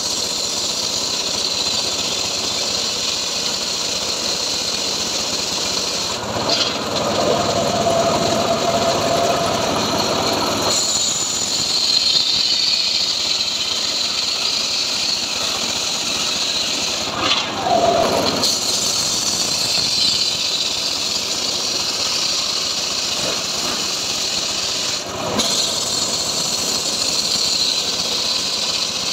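Homemade bench circular saw running and ripping a hardwood log, the large blade giving a steady high whine over the cutting noise. The sound shifts briefly three times.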